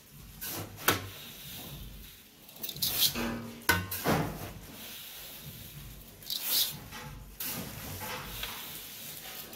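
Kitchen handling noise: a few sharp knocks and clatters of metal cookware, loudest about a second in and again near four seconds, with short bursts of hissing between them.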